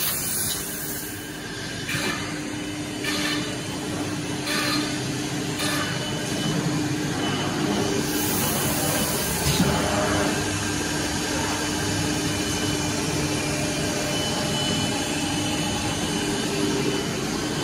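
Woodworking factory machinery running: a steady mechanical hum with a low tone, with short noises every second or so in the first few seconds and a longer high hiss about eight seconds in.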